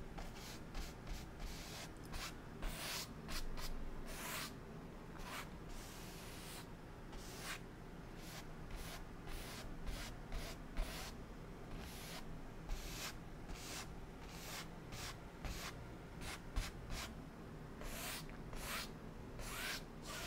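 Brush strokes on a wet oil-painted canvas: a run of short, quick swishes, irregular, a few each second.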